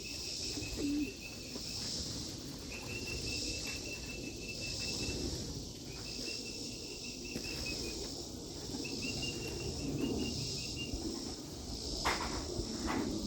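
Insects chirping: a high trill that comes in runs of one to two seconds over a fainter, higher buzz that pulses about once a second. Two or three sharp knocks come near the end.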